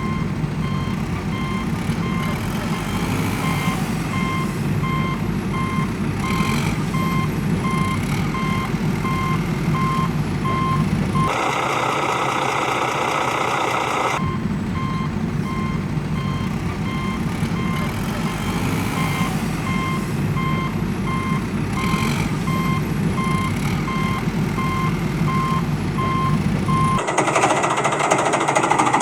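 Reversing alarm beeping quickly and evenly over the steady running of a heavy vehicle's engine, with a brief break in the engine and beeping about halfway through.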